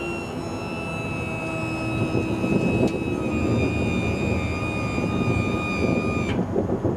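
Hydraulic pump of a motorcycle trailer whining steadily as it lifts the trailer deck, with a bike on it, up off the ground, then cutting off sharply about six seconds in.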